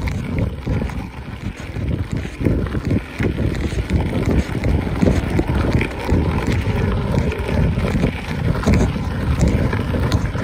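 Wind buffeting the microphone of a camera riding along on a moving mountain bike, a continuous low rumble with uneven gusts.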